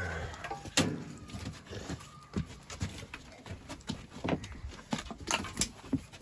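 Irregular knocks and clatter on a hard floor: animals' hooves and feet, a door and a broom knocking as the animals are herded out of a room.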